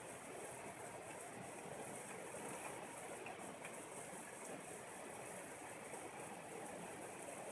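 Steady hiss of rain during a thunderstorm.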